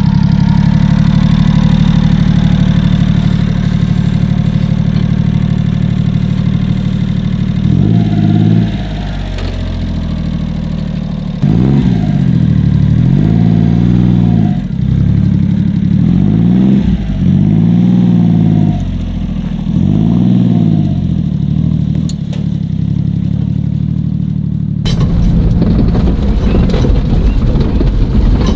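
Honda Acty mini truck's small engine running steadily, then revving up and dropping back several times as the truck pulls away. Near the end it changes to a rougher rattling rumble of the truck driving on a dirt track, heard from inside the cab.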